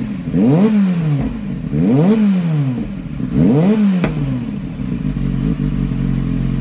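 2009 Kawasaki ZX-6R inline-four breathing through a Yoshimura RS5 carbon slip-on with its baffle removed, blipped three times, each rev rising sharply and dropping back. It settles to a steady idle about four seconds in.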